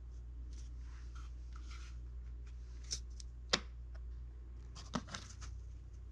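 Craft knife scoring a thin wooden shim along a steel ruler: light scratching strokes for the first couple of seconds, then a few sharp clicks, the loudest about three and a half seconds in. A steady low hum runs underneath.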